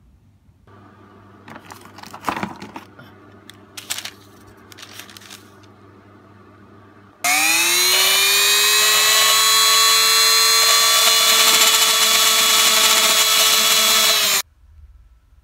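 A handheld electric rotary tool fitted with a pink grinding stone spins up with a rising whine, then runs at a steady high pitch while grinding a wooden knife handle, and cuts off suddenly near the end. Before it starts there are a few faint handling clicks and scrapes.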